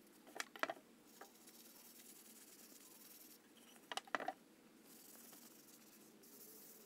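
A wooden hammer handle being handled while it is wiped with a linseed-oil rag: two brief clusters of light clicks and knocks, about three and a half seconds apart, over a faint hiss.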